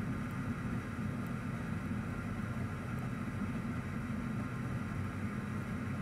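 Steady low background hum, like a fan or air handling, with no distinct events.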